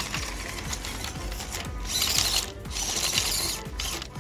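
Small electric WPL RC crawler truck driving over rocks: its motor and geared drivetrain whirring and clicking in uneven bursts as the throttle comes and goes, loudest about halfway through.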